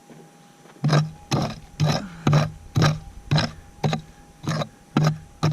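Hammer blows on a steel chisel cutting into hard cap rock, about two sharp strikes a second, starting just under a second in.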